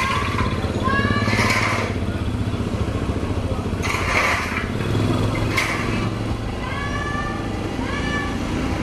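Several short, high, slightly rising calls from long-tailed macaques, a few in a row, with brief hissy rushes between them, over a steady low hum.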